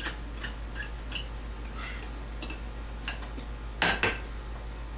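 A spoon stirring cream-style corn in a mixing bowl, with quick scraping clicks against the bowl and two louder clinks about four seconds in.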